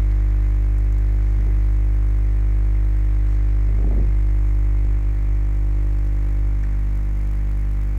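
Steady low electrical hum with a buzzy row of overtones, the kind of mains hum a computer microphone picks up. There is a brief soft blip about four seconds in.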